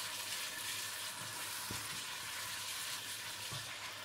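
Tomato sauce with paprika sizzling as it fries in a pot, stirred with a wooden spoon: a steady frying hiss with a couple of soft knocks.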